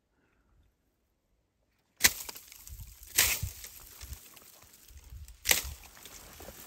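Near silence, then about two seconds in a rustling of brush starts suddenly, broken by three loud sharp snaps like twigs and branches breaking.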